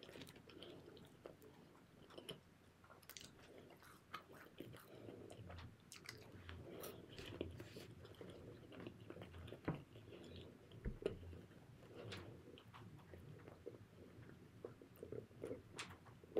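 Faint, close chewing of fried food, with many small wet clicks and smacks of the mouth.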